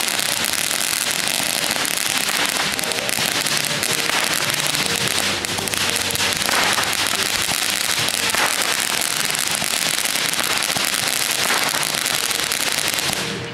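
Ground fountain firework spraying sparks, with a steady, loud hissing crackle that dies away near the end.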